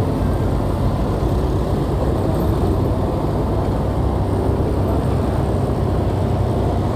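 Steady low rumble of wind buffeting a phone microphone on a moving motorcycle, with the motorcycle and surrounding traffic running underneath.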